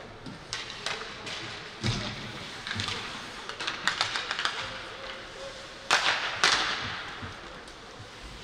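Ice hockey play on the rink: irregular sharp clacks of sticks and puck with the scrape of skates on the ice, and two longer scraping hisses about six seconds in.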